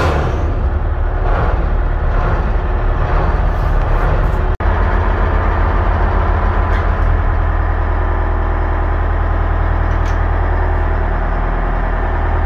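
Detroit Diesel 6-53 two-stroke diesel engine running steadily at the dock, with a split-second break about four and a half seconds in.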